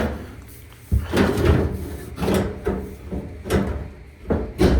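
Clunks, knocks and scraping of a Samsung dryer's sheet-metal front bulkhead being handled and fitted back onto the cabinet, in several separate bumps with the loudest about a second in and near the end.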